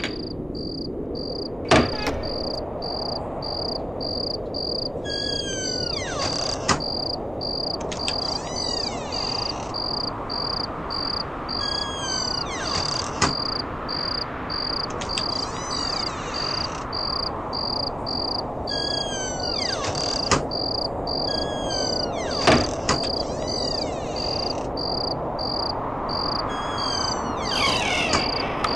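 Night ambience of crickets chirping in an even pulsing rhythm, with groups of short falling calls every few seconds over a steady hiss. A sharp click or knock cuts in about six times, the loudest near the start and about three-quarters of the way through.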